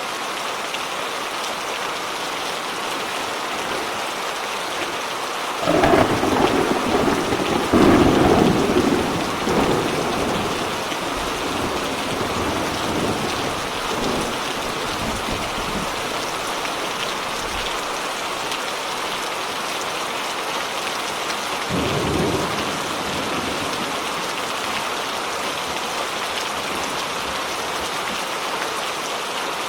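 Steady heavy rain hissing, with a loud clap of thunder about a fifth of the way in that rumbles on and dies away over several seconds, and a shorter, softer roll of thunder about three quarters of the way through.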